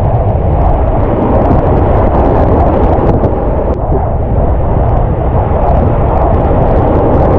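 Whitewater rushing through a rapid, a loud, steady, muffled rush with a low rumble of moving water and wind on the microphone.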